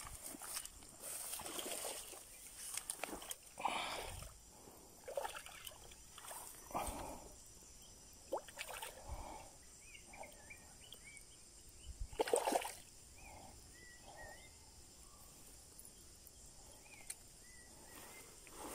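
Irregular splashes and sloshing of water as a hooked hampala barb is brought to the bank and handled, with the loudest burst about twelve seconds in.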